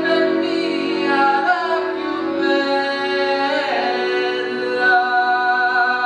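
Accordion playing slow, held chords, with a wavering melody line above them.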